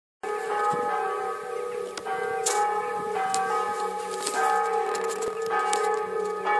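Church bells ringing to call to a service, with strokes about once a second and the tone ringing on between them. The sound cuts in just after the start.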